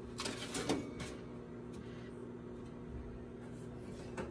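Sheet-metal clicks and rattles as the perforated chaff tray of a Behmor 1600 coffee roaster is slotted into place under its wire drum, clustered in the first second with one more click near the end, over a steady low hum.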